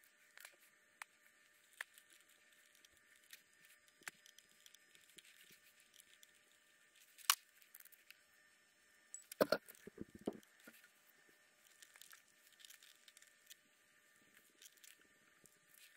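Small tools and plastic parts being handled on a workbench: scattered faint clicks and taps, one sharper click about seven seconds in, and a short run of louder clatters a couple of seconds later.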